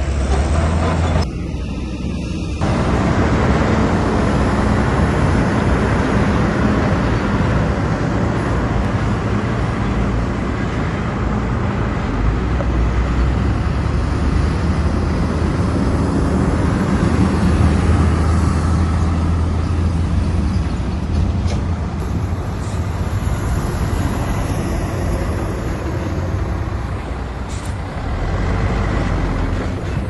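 Komatsu bulldozer's diesel engine running steadily, with a brief drop in level about a second in.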